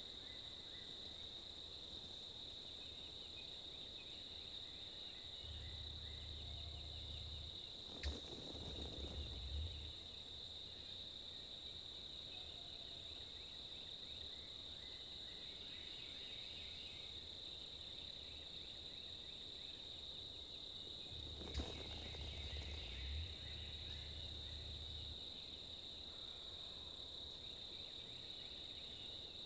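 Insects droning in a steady high-pitched buzz. Twice, about 8 and 21 seconds in, a sharp puff stands out within a low rumble that lasts a few seconds.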